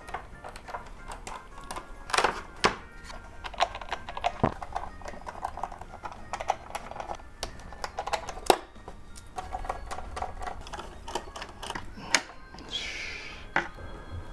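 Irregular clicks, taps and light knocks of hands and small tools on the internal parts of an opened iMac 27-inch Late 2015, as screws, the metal chassis and the logic board are worked loose, with a few brief rustles.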